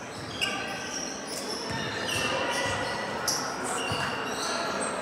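Basketball game play in a gym: sneakers squeaking on the court, a ball bouncing, and background voices echoing in the hall.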